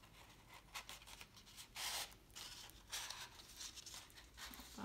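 Card and crepe paper rustling and crinkling as hands push a lollipop stick through slits in a card cut-out: a few short, quiet rustles, the loudest about two seconds in.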